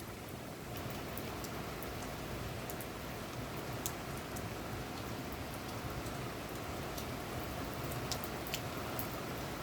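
Steady rainfall, an even hiss with scattered sharp ticks of single drops striking close by.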